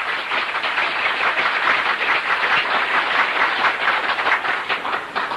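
Audience applauding, a dense clatter of many hands clapping that fades near the end.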